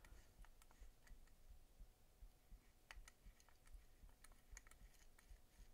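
Faint, scattered small metallic clicks of a screwdriver bit and pliers on a folding knife's post screw as the screw is turned out.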